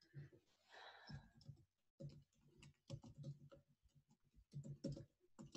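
Faint typing on a computer keyboard: a run of quick key clicks, thickest in the second half.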